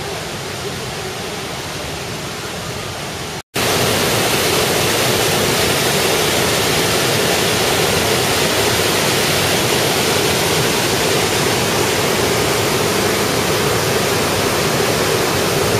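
Stuibenfall waterfall roaring: a steady rush of falling water, fainter for the first few seconds, then after a brief cut about three and a half seconds in, much louder and fuller.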